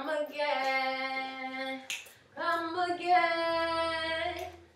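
A woman's voice singing two long held notes, the second a little higher, with a short gap between them and a single sharp tap in the gap.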